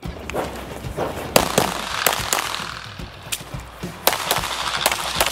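Pistol shots from a compensated Open-division race pistol, fired in quick strings of sharp cracks, some a fraction of a second apart.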